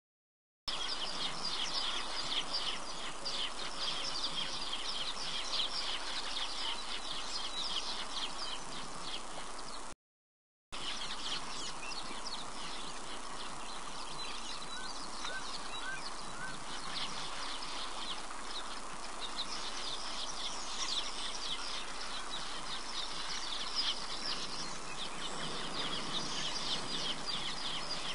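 African bush ambience: a dense chorus of small creatures calling in rapid, high-pitched chirps over a steady background hiss. The sound cuts out completely for under a second at the start and again about ten seconds in.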